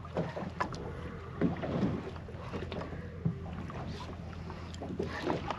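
Steady low hum of a fishing boat with wind on the microphone, broken by scattered light knocks.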